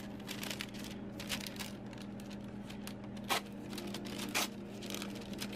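Wax paper crinkling and rustling as it is handled, with irregular crackles and two louder sharp snaps about a second apart a little past the middle.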